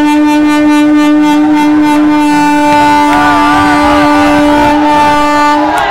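Train horn held in one long, steady, loud blast that cuts off near the end, sounded in celebration. People's voices shout over it, and there is a rapid run of clicks in the first couple of seconds.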